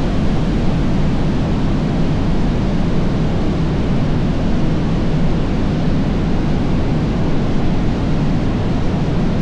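Loud, steady rush of a powerful waterfall heard from close to its base, an unbroken wall of falling-water noise.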